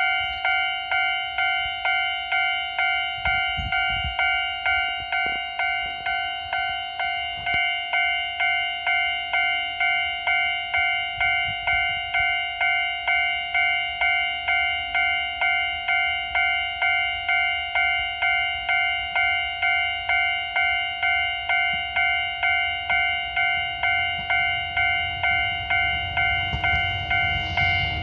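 Japanese level-crossing warning bell ringing steadily, an electronic ding about twice a second, signalling an approaching train. Over the last few seconds the rumble of the approaching train rises beneath it.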